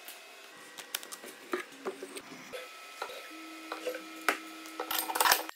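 Scattered knocks and clicks of wooden barrel staves and metal pipe clamps being handled on a workbench, with a dense clatter near the end, over a faint steady hum.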